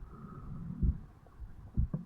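Resting heartbeat of an adult man on waking, recorded at the chest over the mitral valve: low, dull thuds about once a second.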